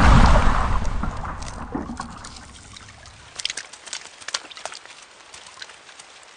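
Thunder rumbling and fading away over about three seconds, then scattered raindrops dripping and splatting, the first drops of a rain shower.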